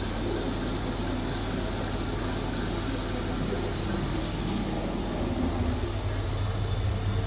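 Water running from a bathroom faucet into a washbasin, a steady rush over a low hum, with a sharp click at the very end.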